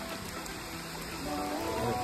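Steady rain falling on paved ground, an even hiss, with background music coming in during the last part.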